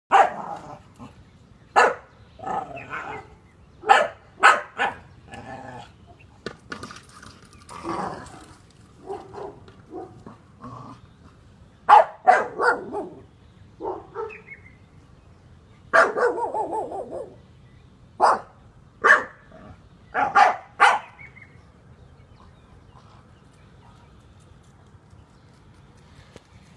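Staffordshire bull terrier howling and barking in a run of short, loud bursts, a few of them drawn out, until she falls quiet a few seconds before the end.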